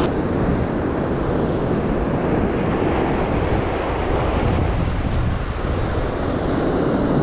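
Sea surf breaking and washing over a boulder shore, a steady rush of waves, with wind buffeting the microphone.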